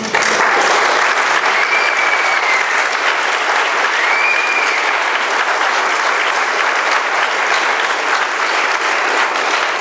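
Large audience clapping, starting all at once and holding steady, with two short high cries rising above the clapping.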